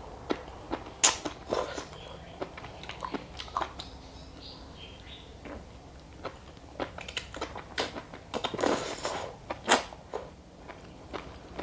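Close-miked mouth sounds of eating enoki mushrooms and mussels in mala sauce: irregular biting and wet chewing with sharp smacks. The loudest smacks come about a second in and near the tenth second.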